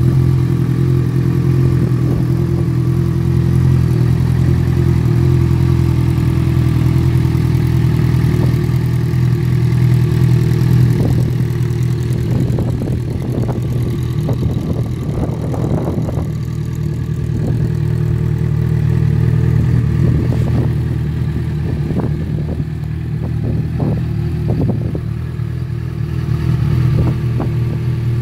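Yamaha XJ6F Diversion's 600 cc inline-four engine idling steadily, with no revving.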